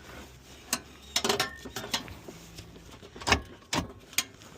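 Metal tools and car parts clinking and knocking against each other: a scattered handful of sharp clicks and clanks, the loudest about three seconds in.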